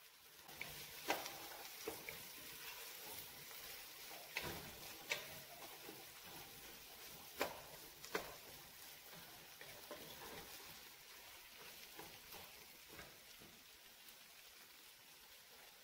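Vegetables sizzling faintly as they sauté in oil in a metal pot, while a wooden spoon stirs them, knocking and scraping against the pot. The sharp clacks of the spoon come several times in the first half and grow fewer and softer after that.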